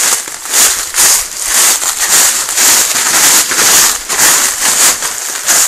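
Footsteps crunching through dry leaf litter and brushing past plants, about two steps a second, with a crackly rustle on each step.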